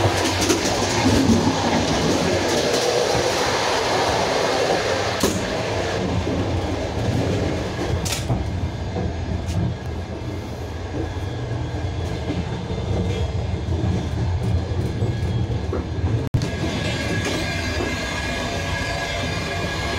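Passenger railway carriage running along the track, a steady rumble of wheels on rails heard from inside the car, with a couple of sharp knocks along the way.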